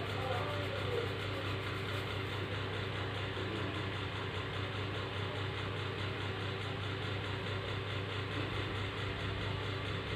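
A steady low mechanical hum over an even hiss.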